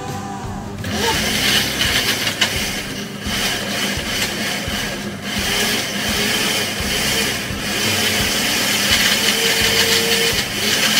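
Electric countertop blender running, blending an avocado shake. The motor comes up about a second in and then runs steadily.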